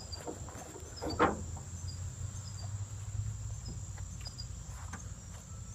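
Faint, short, high-pitched chirps repeating in the background over a low steady hum, with a brief rustling knock about a second in that is the loudest sound.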